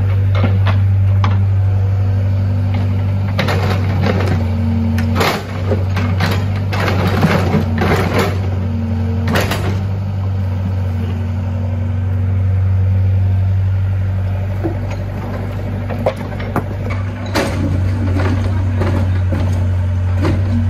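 Diesel engine running steadily at the dig site, with scattered sharp knocks and clatters as the mini excavator's bucket digs into dirt and broken concrete rubble.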